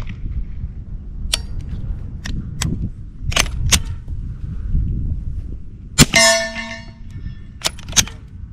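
Suppressed ZEV OZ9c 9mm pistol firing a string of sharp cracks at uneven intervals. The loudest comes about six seconds in and is followed by a brief metallic ringing. The slide is not cycling fully with the suppressor because the recoil spring is too heavy, so the pistol is firing single shots.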